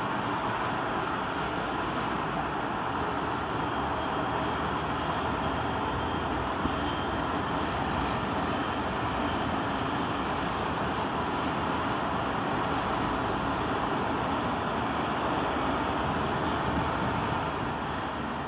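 Street ambience: a steady wash of road traffic noise from passing vehicles, with no single event standing out.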